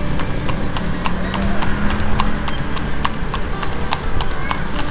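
A cart horse's hooves clip-clopping on a paved road at a trot as it pulls a delman, about four to five sharp hoof strikes a second.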